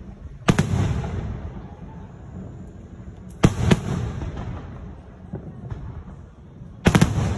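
Aerial firework shells bursting: one sharp bang about half a second in, two in quick succession about three and a half seconds in, and two more near the end, each trailing off in a low rumble.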